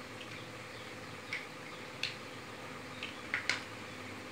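Plastic toy building blocks clicking as they are handled: a handful of light clicks, the last few close together near the end.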